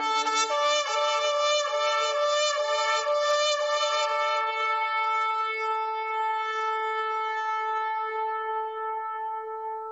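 A long curved shofar blown in one long blast. It begins on a brief lower note, jumps up to a steady held tone, and grows slightly softer and duller toward the end.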